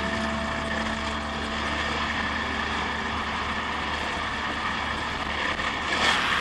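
Trail bike engine running steadily under way on a dirt track, with wind and riding noise on the helmet-mounted microphone.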